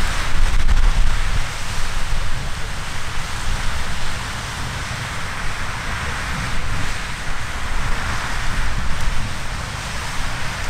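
Riverside Geyser erupting: a steady rushing hiss of its water jet and steam. Wind rumbles on the microphone, most strongly about a second in.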